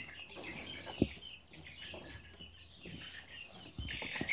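Five-week-old chicks cheeping in short, high chirps, with a single sharp knock about a second in. The chirping grows louder and busier near the end.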